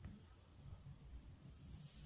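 Near silence: faint room tone with a soft hiss rising near the end.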